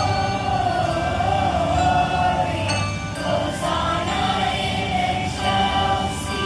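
Middle school choir singing a song with wavering sustained notes, with handbells ringing steady tones alongside.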